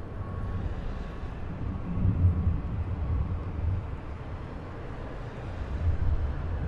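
A deep, steady outdoor rumble that swells about two seconds in and again near the end. Faint evenly spaced beeps run under it and fade out about halfway through.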